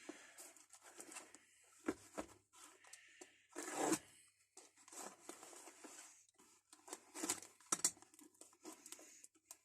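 A small parcel box being opened by hand: packaging tearing and rustling in irregular bursts, with a louder tearing rasp about four seconds in and a few light knocks.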